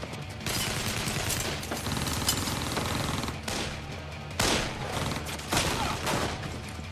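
Movie shootout gunfire: a handgun fired repeatedly in quick succession, with the loudest shots about half a second in, near the middle, and twice in the second half, over a low music score.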